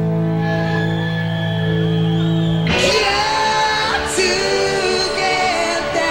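Live rock band playing: a held chord rings steadily, then about three seconds in the full band comes in with a crash and a male singer starts singing.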